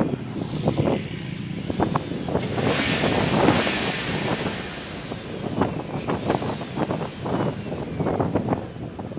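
Motorcycles idling and moving close by, with a broad swell of passing-vehicle noise about three seconds in. A faint whine falls slowly in pitch behind it.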